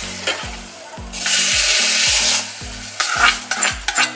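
Hot ghee tempering (tadka of mustard seeds, cumin, dried red chillies and curry leaves) sizzling as it is stirred into a bottle gourd kootu in an aluminium pressure cooker, with a burst of sizzling about a second in lasting about a second. Near the end, a metal ladle scrapes and clinks against the pot.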